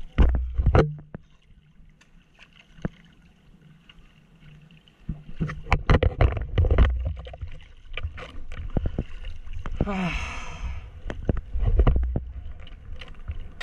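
Sea water splashing and slapping against a soft-top surfboard and the water-level camera in choppy surf, in bursts near the start and again midway, with quieter lapping between.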